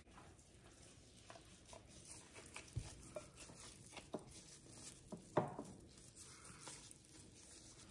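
Faint wet squishing and soft slaps of marinated lamb chops being handled and turned by gloved hands in a glass bowl, with a few louder squelches around the middle.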